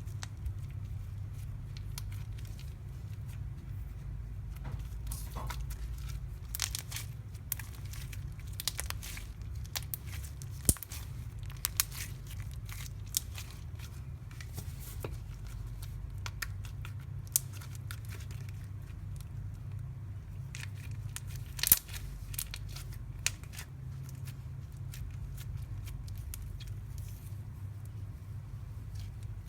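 Slime being handled, giving irregular small crackles and clicks over a steady low hum.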